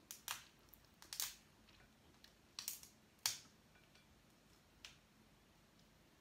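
Close-up eating sounds from a meal of crab, shrimp and shellfish: about eight sharp, irregular cracks and clicks in the first five seconds, the loudest a little past three seconds.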